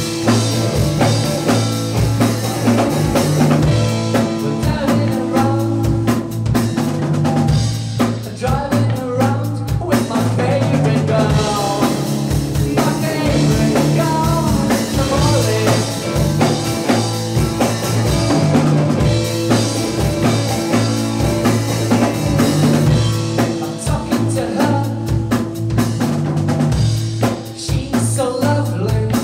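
Live rock band playing on stage: electric guitar, electric bass and drum kit, with a voice singing at times.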